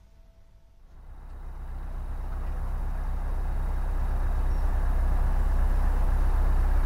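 Narrowboat's engine running steadily while cruising, coming in about a second in and growing louder over the next few seconds.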